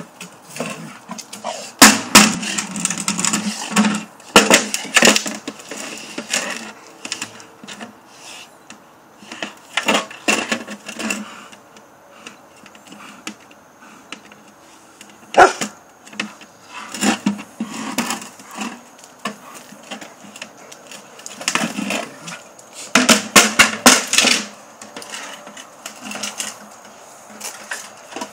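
Plastic bucket scraping and knocking on concrete as a Rottweiler shoves, paws and carries it in its mouth. It comes in several bursts of clattering with quiet spells between, and one sharp knock about halfway through.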